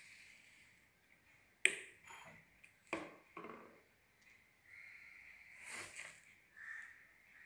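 A few sharp clicks and knocks, the loudest about one and a half seconds in, then a short noisy burst near the end, over a faint steady high tone.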